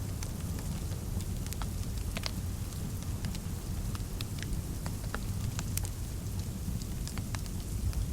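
Fireplace crackling: scattered, irregular sharp pops and snaps over a steady low rumble.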